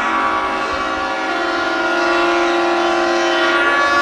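Many superyacht horns sounding a farewell salute together, long steady blasts at several pitches overlapping, with a deeper horn joining about a second in.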